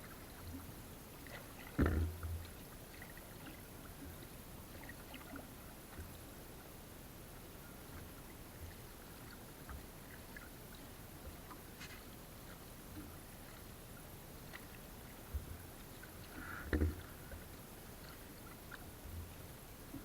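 Water sloshing and lapping, with scattered small clicks and two louder knocks, about two seconds in and again late on.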